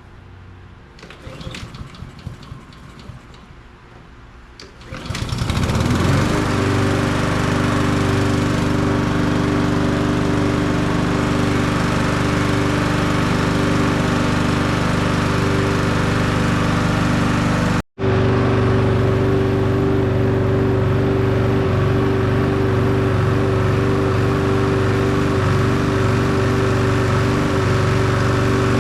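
Honda HRR push mower's single-cylinder four-stroke engine starting about five seconds in, then running steadily at a constant speed while it warms up. The sound cuts out for an instant about eighteen seconds in.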